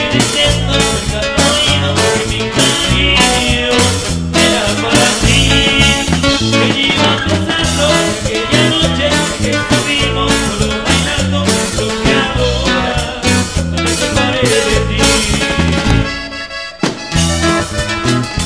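Live band playing an instrumental passage of a cumbia with a steady beat: electric bass, guitar, drums and accordion. The music thins out briefly about sixteen seconds in before the beat comes back.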